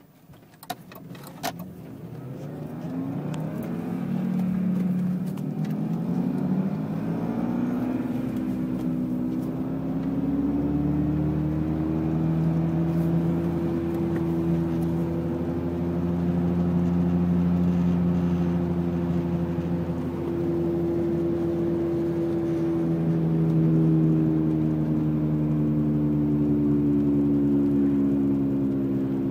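BMW E46 rear differential whining inside the cabin, very loud. The pitch rises as the car picks up speed over the first several seconds, then holds nearly steady at cruising speed. A couple of short clicks come right at the start.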